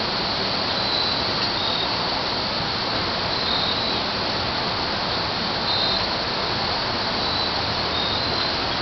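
Steady outdoor background hiss, with a few brief high-pitched chirps scattered through it.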